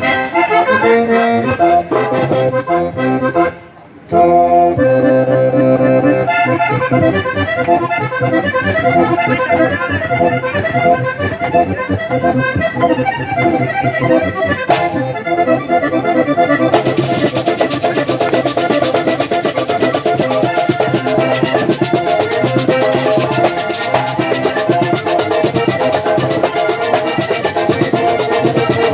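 Diatonic accordion playing a fast vallenato puya. The music breaks off for a moment about four seconds in. From about seventeen seconds in, a fast, even ticking rhythm plays along.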